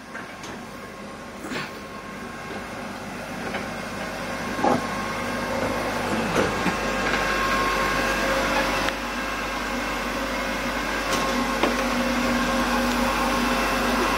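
Steady hum of running machinery in a yacht's engine room, with several steady tones, growing louder over the first half as the engine room is entered, and a few knocks.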